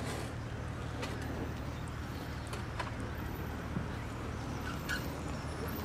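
Open-air car park ambience: a steady low rumble with a few faint scattered clicks.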